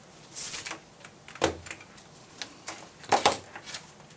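Irregular clicks and knocks of small hand tools, such as pliers, being handled and set down on a hard tabletop, with the loudest knocks about one and a half and three seconds in.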